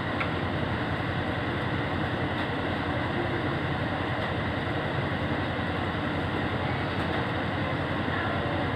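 A steady, unchanging mechanical rumble and hiss.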